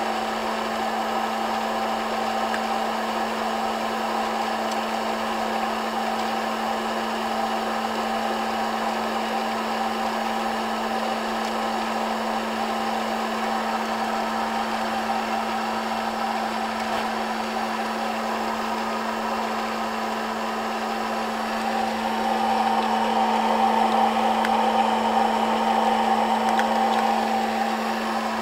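Hot-air popcorn popper running steadily as a coffee roaster: its fan whirs and blows the beans around the chamber, over a steady low motor hum. The beans are at the light-brown stage of the roast. The whir grows a little louder about three-quarters of the way through, then settles.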